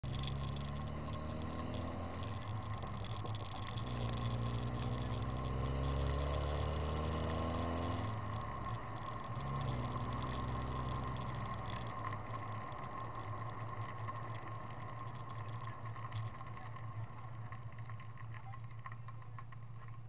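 Car engine pulling away and accelerating, its pitch rising, dropping at a gear change about eight seconds in, rising again, then settling to a steady cruise. Heard through a microphone mounted outside the car, with wind and road noise.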